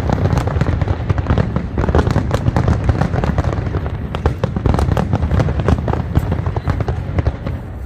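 Aerial fireworks display going off: a dense, continuous barrage of bangs and crackling bursts that thins out near the end.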